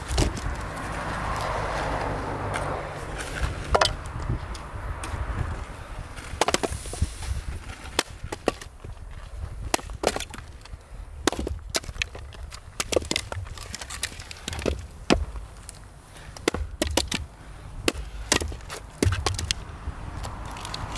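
A Fiskars splitting axe strikes and splits a firewood round on a chopping block at the very start. Many short, sharp wooden clacks follow as the split pieces knock together and are tossed onto the woodpile.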